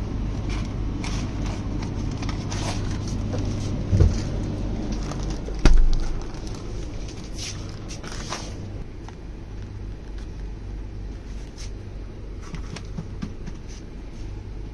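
Steady low hum at an open drinks cooler in a shop, with two sharp knocks about four and six seconds in as bottles are taken. Then crackling and rustling of plastic milk packets being handled and set down on a checkout counter.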